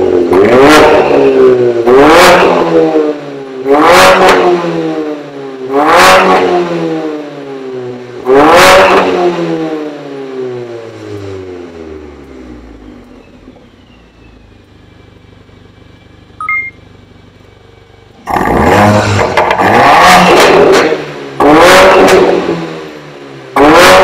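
Mercedes-Benz CLA45 AMG turbocharged 2.0-litre four-cylinder with an Armytrix variable exhaust, revved while standing. Five sharp revs come about two seconds apart, the last one sinking slowly back toward idle. After a few quieter seconds with a short beep, the engine is held at high revs for longer stretches, with one more sharp blip near the end.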